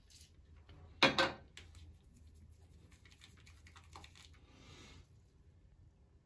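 Faint handling sounds of shaving foam being worked in the hands with a razor: one loud, short double burst of noise about a second in, then soft clicks and rubbing.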